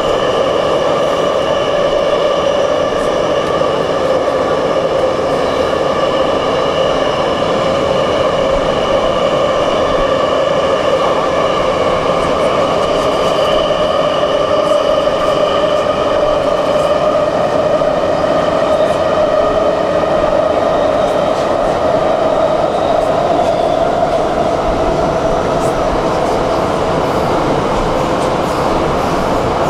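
Metro train running through the tunnel between stations, heard from inside the car: a steady rumble with a whine of several steady tones held over it.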